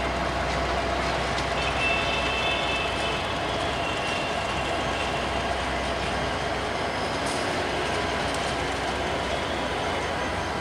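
Diesel locomotive hauling a meter-gauge passenger train slowly over yard points and curves: a steady running noise, with a high wheel squeal about two seconds in.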